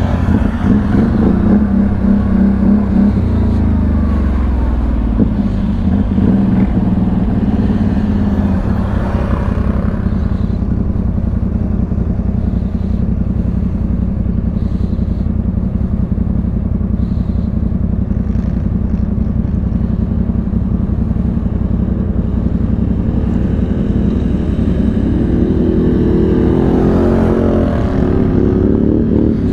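CF Moto CForce 1000 ATV's V-twin engine running under way, its pitch rising and falling with the throttle, with a rev rising again near the end.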